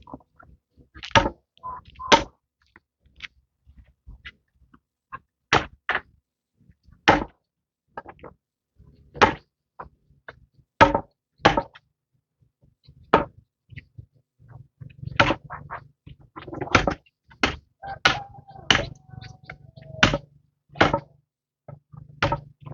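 Sharp whacks repeated at uneven intervals of one to two seconds, about sixteen in all, coming closer together in the second half. A faint low hum joins in about halfway through.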